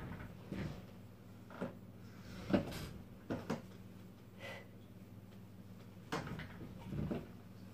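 A run of short creaks and knocks, about one a second, from a wheeled office chair as a person pushes up from its arms to stand and sits back down in it.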